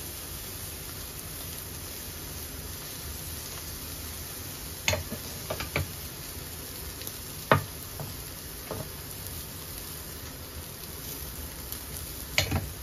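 Beef burger patty sizzling in a hot cast-iron skillet: a steady frying hiss, broken by a few sharp pops about five seconds in, once more a couple of seconds later, and near the end.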